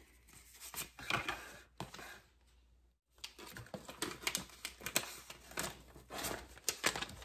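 Self-adhesive contact paper being handled and its backing peeled off: irregular quick crackles and rustles, with a brief lull about two to three seconds in.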